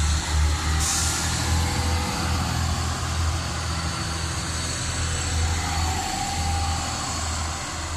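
Two-unit TER regional passenger train pulling slowly away from the platform, its engines running with a deep, pulsing hum and the rumble of the train rolling over the track. A short hiss of air about a second in; the sound eases a little near the end as the train draws away.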